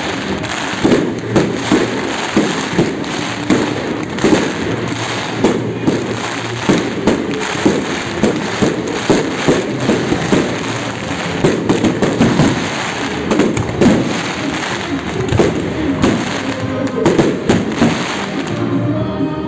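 Aerial fireworks display: shells bursting in quick succession, a dense string of sharp bangs several a second over a continuous rushing noise.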